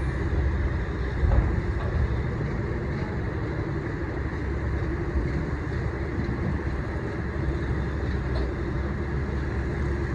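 A boat engine runs steadily with a low rumble, with a brief knock about a second in.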